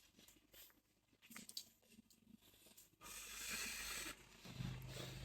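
Faint rustling and small handling noises, with about a second of soft hiss some three seconds in and a low hum near the end.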